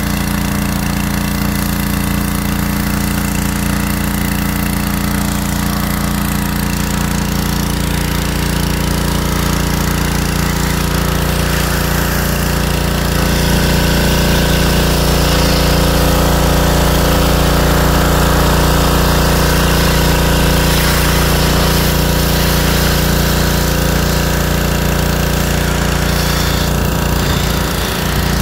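Pressure washer running steadily, its small engine droning under the hiss of the water jet spraying the car's hood and windshield. The spray gets louder about halfway through and eases near the end.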